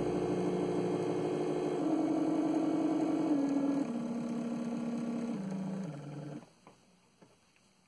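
Electric cooling-fan motor under PWM control whining with a steady tone. The pitch steps down about four times as the duty cycle is turned down and the motor slows, then the sound stops about six and a half seconds in.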